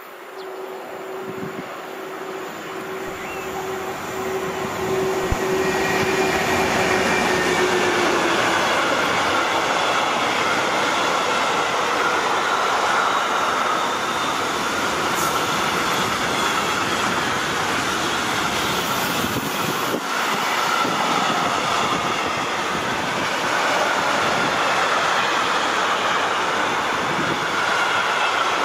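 An electric locomotive approaches and passes with a steady whine that dips in pitch and fades about eight seconds in. After it comes the continuous rolling noise of a long container freight train's wagon wheels on the rails, with a faint thin squeal above.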